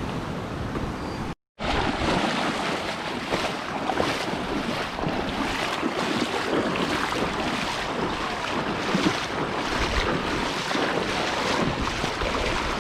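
Steady rush of flowing river water, with wind buffeting the microphone. The sound cuts out completely for a moment about a second and a half in, then resumes a little louder.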